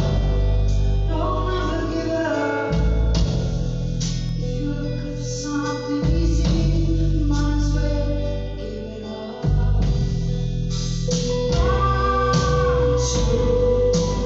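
Live band music with a woman singing the lead over guitar and deep bass notes that change every few seconds.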